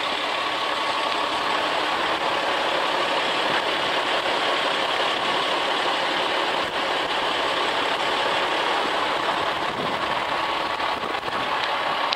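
Diesel engine of a 2004 Sterling LT9500 plow truck idling steadily.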